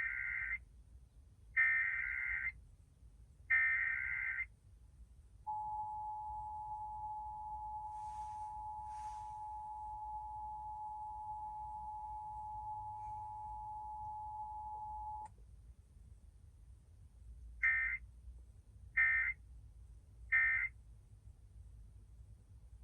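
Emergency Alert System test: three short screeching bursts of SAME digital header data, then a steady EAS attention tone held for about ten seconds, then, with no spoken message in between, three quicker end-of-message bursts.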